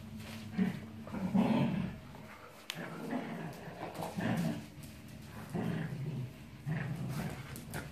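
Dogs growling in play during a tug-of-war over a plush toy: a series of low growls, about one a second, with a sharp click about a third of the way in.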